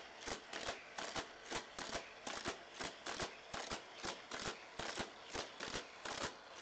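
Hot Wheels Roto Revolution playset: a die-cast toy car whizzing round the plastic loops and through the battery-powered boosters, the boosters' spinning wheels zipping it along. It makes a fast run of regular whooshes, about three or four a second, as the car keeps lapping.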